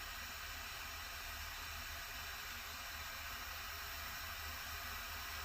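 Steady hiss of a heat tool held on QS8 connectors while they are soldered, with a low hum underneath.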